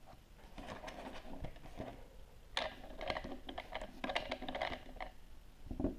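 A hand working a plastic Play-Doh Diggin' Rigs Cutter toy, making a run of light plastic clicks and rattles. A dull thump comes near the end.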